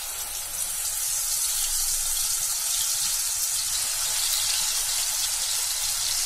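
Freshly ground masala frying in hot oil in a kadhai: a loud, steady sizzling hiss that swells a little over the first second.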